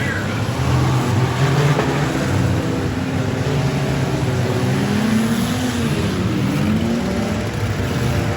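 Six-cylinder demolition derby cars' engines revving, several at once, their pitch rising and falling.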